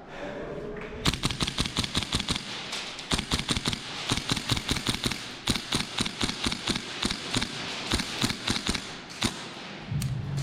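Gas blowback airsoft rifle, an M4-type carbine, firing rapid strings of sharp cracks. The strings start about a second in and stop shortly before the end.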